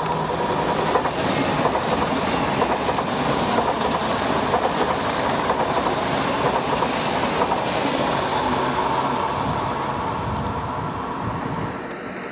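PKP Intercity Pendolino (ED250) electric high-speed trainset passing at speed: a loud rush of air and rolling wheel noise with a rapid clatter from the wheels. The sound drops away near the end.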